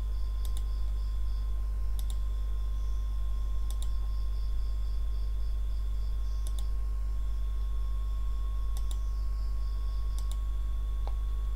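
A few sharp, spread-out clicks from computer use at the desk, about six in all, over a steady low electrical hum with a faint high whine.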